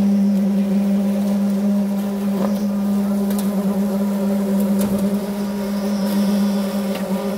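Concrete poker vibrator running with a steady, even hum, compacting freshly placed concrete, with a few faint clicks over it.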